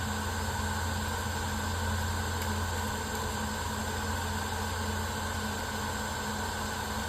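Portable fiber laser obstacle remover running while it cuts a branch: a steady mechanical hum with a low drone, a thin high whine and a hiss, unchanging throughout.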